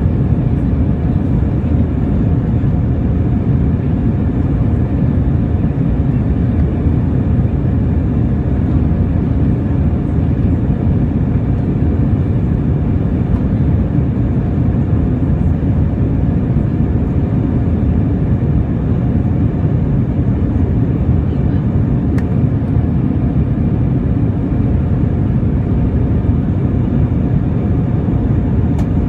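Cabin noise of an Airbus A320 in flight: its two IAE V2500 turbofan engines and the rushing airflow make a loud, steady low drone, with a few faint steady hum tones above it.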